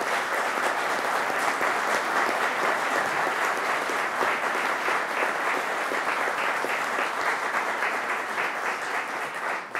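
Audience applauding steadily, starting to die away at the very end.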